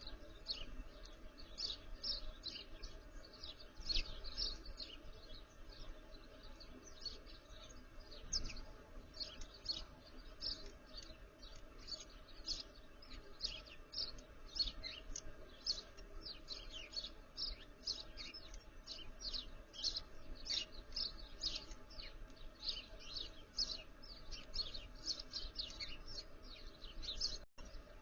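Small backyard songbirds chirping continuously, many short high chirps overlapping in quick succession.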